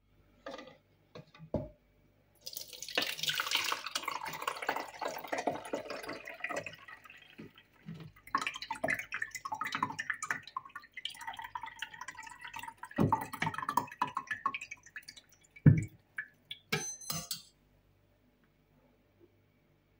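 Hot fruit infusion poured from a pot through a wire-mesh sieve into a plastic measuring jug, splashing and trickling unevenly, with a couple of sharp knocks. Near the end comes a brief metallic clatter, then it goes quiet.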